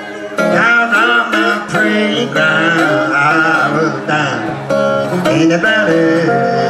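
Live acoustic country blues in the Piedmont style: a steel-string acoustic guitar played steadily under a woman's voice sliding and wavering through the melody.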